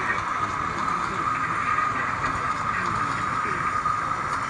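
Indistinct crowd chatter over a steady background din, with no single sound standing out.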